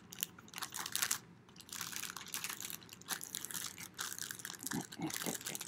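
Thin plastic zip-lock bag crinkling as a wet, folded paper towel is stuffed into it: an uneven run of small crackles and rustles.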